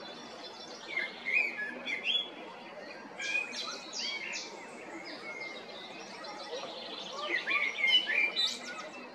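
Male common blackbird singing: three phrases of fluty whistled notes, the second and third closing with high, squeaky twittering.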